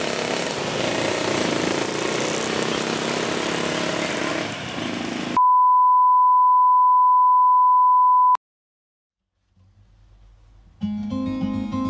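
Motorcycle engines running under outdoor noise, cut off abruptly by a steady test-tone beep, the 1 kHz reference tone that goes with colour bars, held for about three seconds and stopping sharply. After a moment of silence, acoustic guitar music starts near the end.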